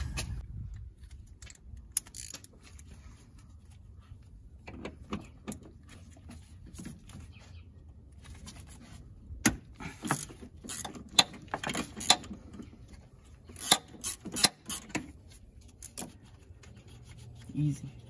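Hand tools clinking and knocking against metal parts in a car's engine bay: scattered sharp clicks and taps at an uneven pace, busiest in the second half.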